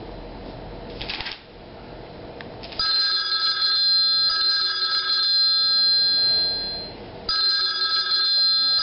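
Telephone ringing with an electronic multi-tone ring: one long ring starting about three seconds in, a short break, then a second ring starting near the end.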